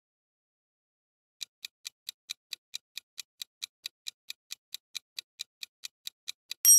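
Countdown-timer ticking sound effect: about a second and a half of silence, then clock-like ticks about four or five a second, ending near the end in a louder bell-like ding that signals time is up.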